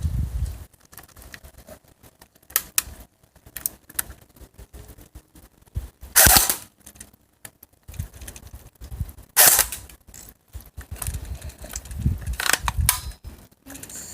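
Air rifle shots: two sharp reports about three seconds apart, the loudest sounds, with lighter clicks and handling noise between them.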